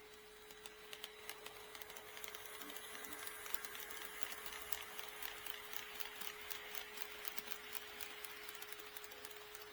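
HO scale model train running past on KATO Unitrack: wheels clicking irregularly over the rail joints over a steady running hiss. It grows louder from about a second in and eases off near the end.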